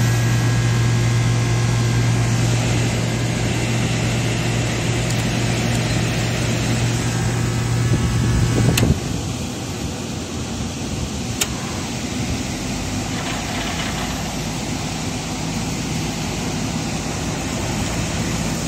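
Air-conditioning unit running with a steady low hum over an even rush of air, during a test run after the blower fan motor's faulty capacitor was replaced. The strongest part of the hum drops out with a click about nine seconds in, and a second click follows a couple of seconds later.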